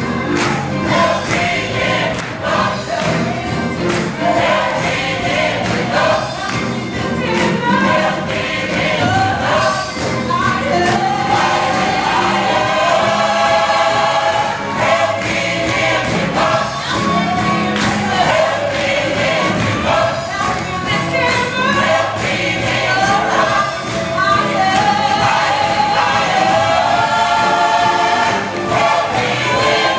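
Large church choir singing, many voices together.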